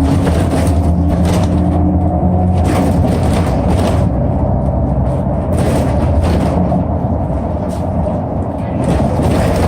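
City bus running with a steady low engine rumble and scattered rattles and knocks.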